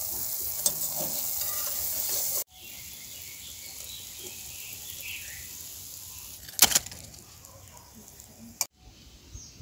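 Hot oil sizzling as batter-coated hummingbird leaf fritters deep-fry in a wok, loud at first and dropping abruptly to a quieter sizzle about two and a half seconds in. A single sharp metal clink of the slotted spoon against the wok comes about two-thirds of the way through.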